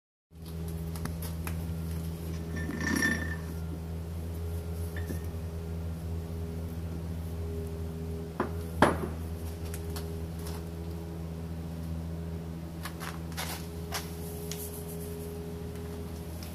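Heavy steel parts being handled and set down on a press fixture: a ringing metal clink about three seconds in, two sharp knocks just past the middle and a few lighter clicks later, over a steady low machine hum.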